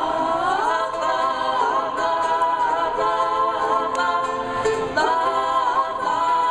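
Several voices singing a drawn-out "love" in harmony, a cappella, holding long notes with swooping slides down and back up in pitch.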